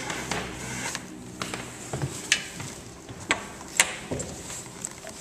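3/16-inch lacing rope being drawn through a trampoline grommet and over a button on the boat's rear bar: scratchy rope-on-fabric rubbing and zipping, with about five short sharp ticks between one and four seconds in.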